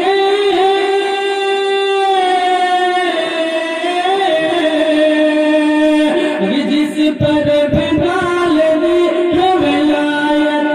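A man singing a naat, an Urdu devotional poem, drawing out long held notes between the lines of verse.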